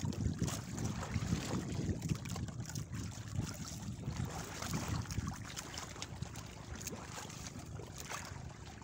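Wind buffeting the microphone in an uneven low rumble, with water lapping and trickling against a small boat's hull.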